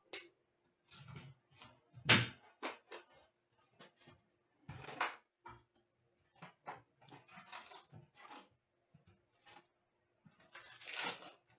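Hockey trading-card box and foil pack wrappers being handled and opened: scattered clicks and crinkling rustles, with a longer, louder tearing rustle near the end as the first pack is opened.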